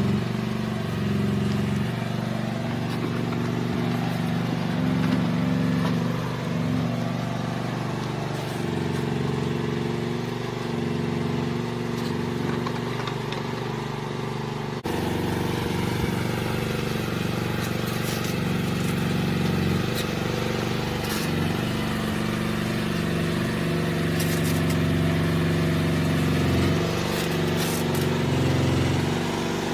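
Mini excavator's small engine running at a steady speed, its pitch shifting now and then as the load changes, with a few short clicks.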